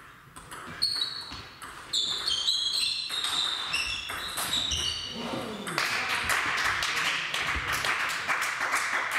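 Table tennis balls clicking sharply off bats, table and floor in a sports hall, many quick knocks, several with a short high ping. About six seconds in a voice calls out, falling in pitch, and a steady hiss of hall noise with voices follows.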